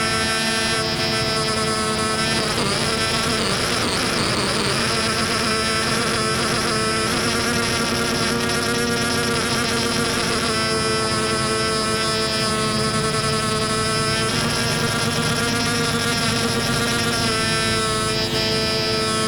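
Modular synthesizer, the 'wheezing lute' patch, holding a dense drone of many steady tones stacked together. A few seconds in there is a stretch of wavering, gliding pitches before it settles again.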